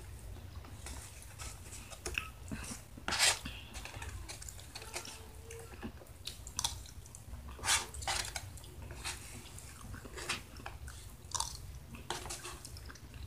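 Close-up chewing and mouth sounds of a person eating an enchilada, with scattered wet clicks and smacks, the loudest about three seconds in and again near eight seconds. A low steady hum runs underneath.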